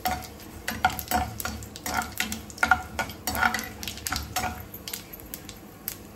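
A slotted metal spatula scrapes and clinks against a metal pan, stirring cashews, curry leaves and dried red chillies that sizzle as they fry in hot oil for a tempering. The stirring strokes come about twice a second and stop about four and a half seconds in, leaving the quieter sizzle and a few taps.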